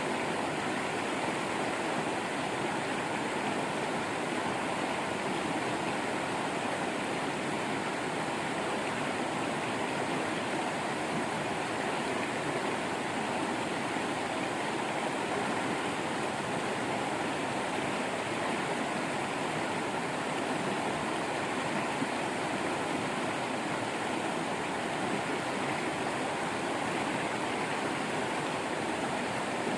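Small waterfall and stream running water, a steady rushing splash with no change in level.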